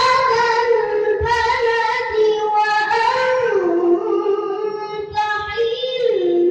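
A boy's voice reciting the Quran in the melodic tilawah style, holding long ornamented notes that slide down in pitch about three and a half and six seconds in.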